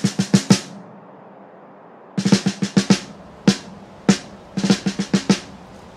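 Drums in a music track: quick runs of snare and drum hits, each run lasting under a second, broken by short pauses and single strikes. A long gap falls about half a second in, and the last run ends about a second before the close.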